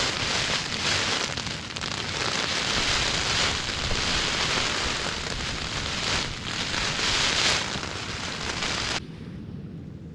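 Heavy rain falling on a Vango Banshee tent's flysheet, heard from inside the tent as a dense rushing patter that surges and eases. About nine seconds in it cuts off suddenly, leaving a fainter, lower rush of wind.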